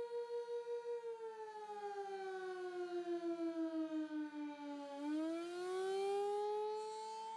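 Outdoor civil defense warning siren sounding during a test. It holds a steady tone that swells and fades about four times a second, then slides down in pitch for about four seconds and climbs back up near the end.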